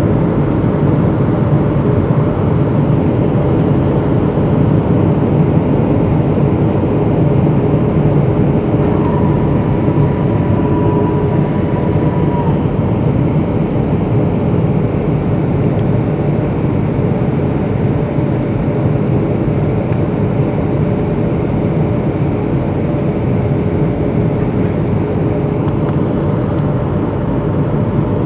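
Steady cabin noise of a Boeing 757-200 on approach, heard from a window seat beside the engine: the hum of its Pratt & Whitney PW2037 turbofan blended with airflow noise and a steady low tone. About nine seconds in, a thin higher whine comes in for a few seconds.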